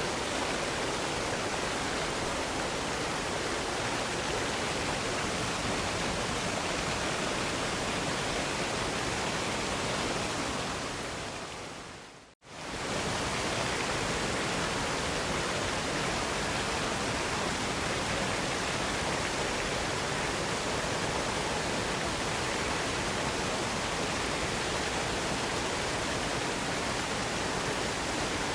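Waterfall rushing in a steady, even roar of falling water. About ten seconds in it fades away over two seconds to a moment of silence, then quickly returns at full strength: the seam where the recording loops.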